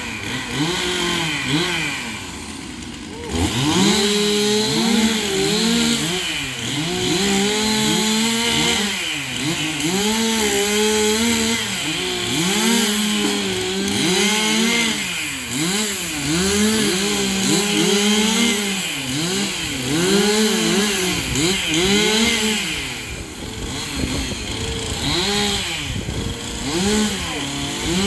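Two-stroke chainsaw running at high revs, its engine note rising and falling again and again as the throttle is worked and the chain loads up in the wood. It eases off briefly about two seconds in, then picks back up.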